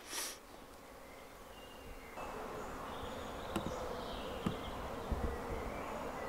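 A bee buzzing steadily, coming in about two seconds in, with two faint clicks.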